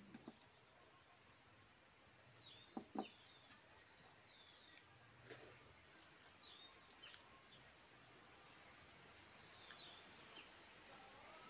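Faint small birds chirping in short sweeping calls a few times, over a quiet background. A pair of sharp clicks about three seconds in is the loudest sound, with a few softer clicks elsewhere.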